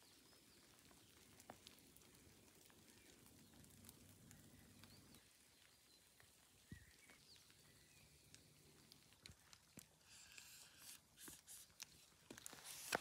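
Near silence: a faint, still wet-forest ambience with a few small bird chirps and scattered light ticks. There is some louder rustling and clicking near the end.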